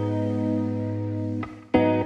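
Background music with guitar: a held chord rings on and fades about a second and a half in, then a new chord is struck near the end.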